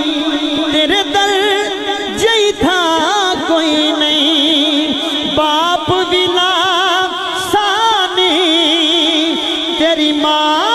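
Man singing a naat through a microphone and loudspeakers, drawing out long, ornamented notes with a wide wavering vibrato, over a steady held tone.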